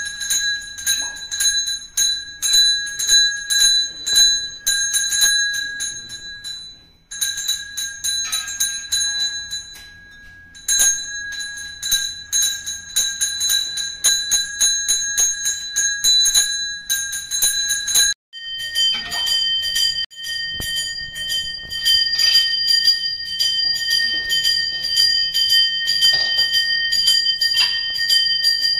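Brass puja hand bell (ghanta) rung rapidly and continuously during temple worship, with two brief pauses. About two-thirds of the way through, a bell of a slightly different pitch takes over and rings on steadily.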